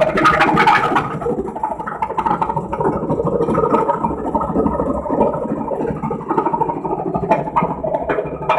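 Laundry washing machine running with a very loud noise, a continuous clattering with many rapid knocks.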